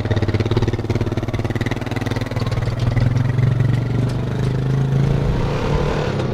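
Honda quad bike's engine running as it drives off along a dirt farm track; the engine note rises a little about three seconds in and then holds steady.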